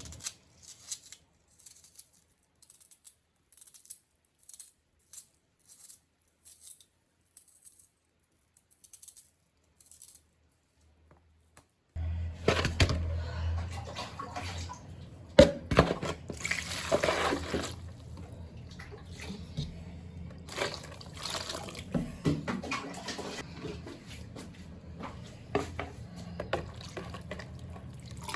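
Sparse soft taps and clicks, then from about twelve seconds in, water running and splashing at a sink with occasional clatter.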